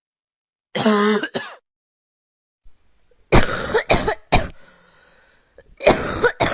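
A person coughing: a short voiced cough about a second in, then three sharp coughs in quick succession around the middle, and another coughing fit starting near the end.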